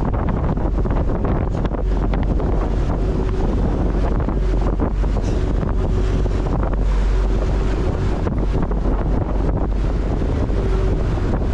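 Wind buffeting the microphone over the rush and splash of water along the hull of a dive boat under way, loud and steady, with a faint hum coming and going underneath.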